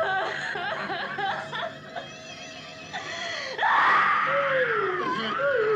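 A woman screaming in terror while men cackle and laugh at her. Short choppy cries and laughs fill the first few seconds, then a loud, long wavering scream starts about three and a half seconds in, with a lower voice wailing along beneath it.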